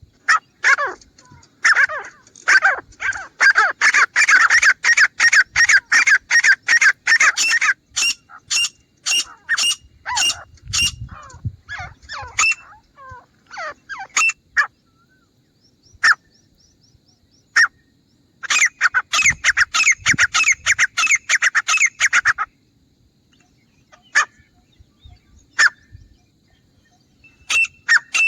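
Grey francolin calling: loud, rapid runs of repeated calls, with scattered single notes between the bouts and a fresh outburst about two-thirds of the way in.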